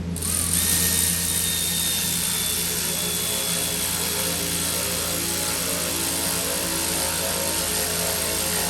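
A motor-driven machine switches on abruptly and runs with a steady, even rushing roar. Two faint high whines appear about half a second in and fade away.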